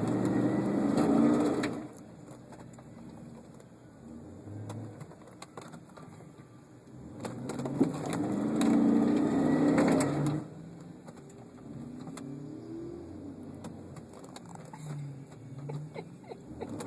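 Off-road truck engines revving hard with tires spinning in mud, in two loud bursts, one at the start and one about eight seconds in, with the engines running lower and rising and falling in between.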